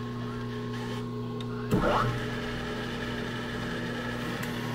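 Steady electrical hum of a rotary phase converter, then about two seconds in the milling machine's three-phase spindle motor switches on with a sudden jolt and keeps running, turning a boring head in low range.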